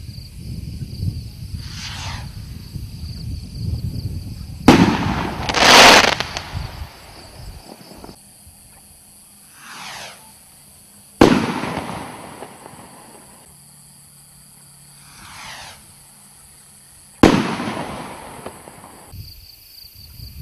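Professional 1.3G firework rockets going off one after another: each launches with a whoosh that falls in pitch, and three of them burst with a sharp bang. The first bang is followed by a loud crackle from its silver crackling effect.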